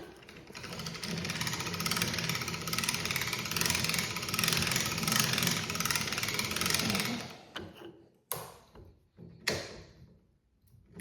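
Small electric anchor winch motor running for about seven seconds with a steady hum, then stopping; a few short knocks follow.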